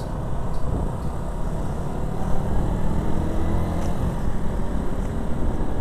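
Motorcycle running along the road, its engine holding steady with a dense low rumble and road noise.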